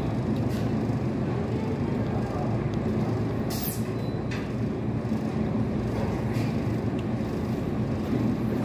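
Steady low rumble of restaurant dining-room noise, with a few light clicks of chopsticks and tableware and a brief high squeak about three and a half seconds in.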